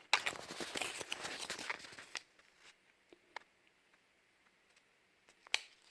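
Packaging being torn open and rustled for about two seconds, then handled quietly with a few separate clicks.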